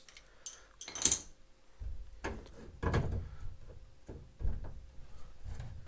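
Ford truck outside door handle assembly being fitted by hand onto a steel reinforcement plate inside the door shell: a series of about six metal knocks and clanks, the sharpest about a second in.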